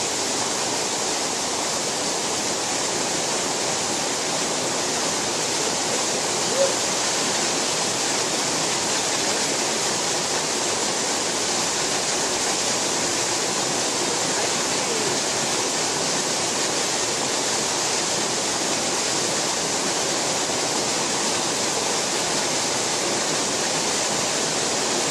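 Waterfall pouring down a rock face onto boulders: a steady rush of falling water.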